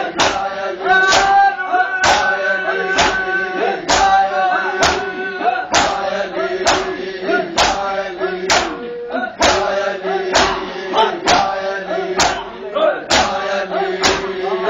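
Men's voices chanting a noha in unison over matam: a group beating their chests together in a steady rhythm, loud sharp slaps about once a second.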